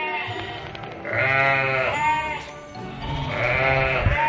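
A penned mob of sheep, ewes with their well-grown lambs, bleating: several long calls overlap, loudest about a second in and again near the end.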